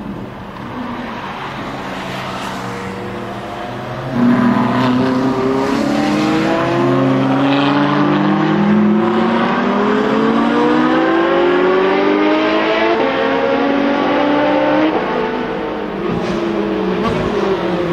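Ferrari F12 Berlinetta's 6.3-litre V12 running along the track, then from about four seconds in accelerating hard and loud, its pitch climbing and dropping back through several upshifts.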